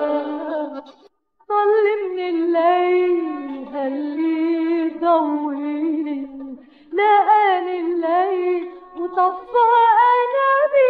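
Background music led by a single melody line with vibrato and ornamented slides. No words can be made out. It drops out for a moment about a second in, then carries on.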